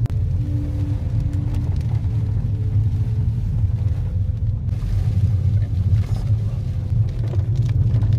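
Steady low rumble of a car driving on a wet road, heard from inside the cabin, with faint background music notes over it.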